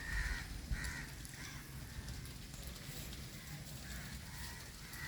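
Faint, short bird calls repeating every second or so over a low outdoor rumble.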